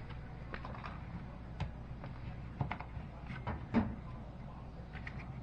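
A steady low hum with a handful of light, irregular clicks and knocks, the loudest near the end.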